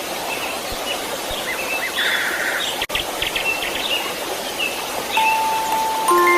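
Steady white-noise hiss with birds chirping over it, and long soft chime-like musical notes coming in near the end.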